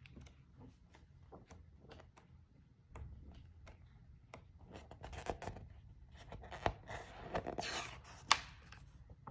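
Paper pages of a book being flipped and turned: rustling with short sharp snaps, the loudest snap about eight seconds in.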